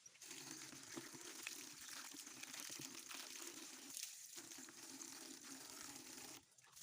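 Water pouring steadily into a plastic bottle drinker, with a brief break about four seconds in, then stopping near the end.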